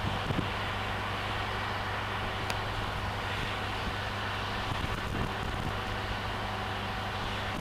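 Steady low drone of a diesel-electric train under way, with a constant low hum and a few faint knocks near the start and about five seconds in.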